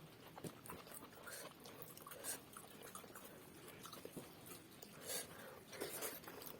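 Faint chewing and small irregular mouth smacks and clicks of people eating rice with dal and mashed potato.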